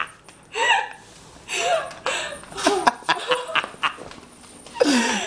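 People laughing in several bursts, some with high notes that rise and fall in pitch.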